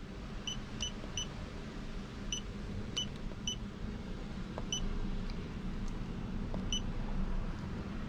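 Handheld OBD-II scan tool beeping as its buttons are pressed: about eight short, high beeps at uneven intervals while the menus are stepped through to read and clear ECU fault codes. A steady low hum runs underneath.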